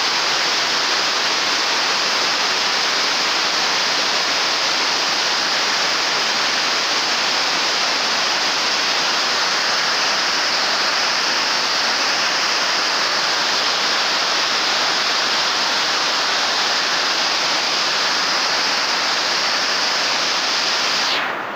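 Heavy rain falling on a roof, a loud, steady, dense hiss. It drops off sharply just before the end.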